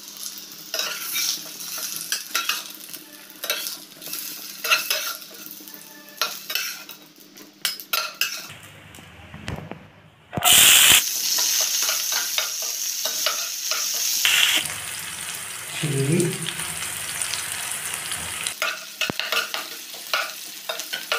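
Spatula clicking and scraping in a frying pan as fried brinjal pieces are lifted out of the oil. About ten seconds in, a sudden loud sizzle starts as sliced onions and green chillies hit the hot oil, and it keeps sizzling while they are stirred with the spatula.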